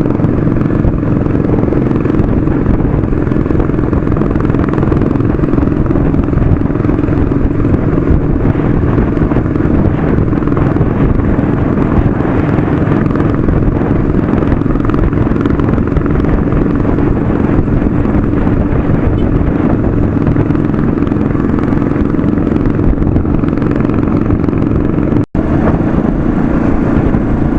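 Royal Enfield Classic 500's single-cylinder engine running steadily at cruising speed, heard from on the bike, with a constant low rush of road and wind noise. The sound cuts out for a split second near the end.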